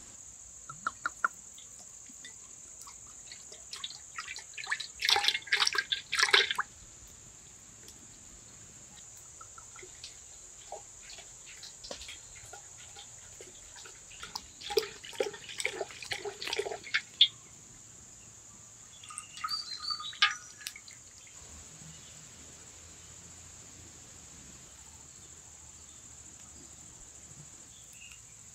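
Outdoor ambience with a steady high hiss and three short bursts of bird calls. Cooking oil is poured from a bottle into a metal wok over a wood fire partway through.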